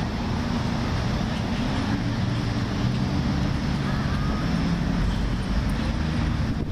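Steady low rumble of city traffic.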